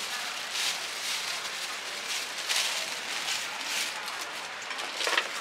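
Oil sizzling in a hot frying pan: a steady hiss with faint pulses every half second or so, and a metal clink near the end.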